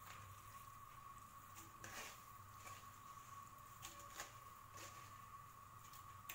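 Near silence: faint steady room hum with a few soft ticks and taps.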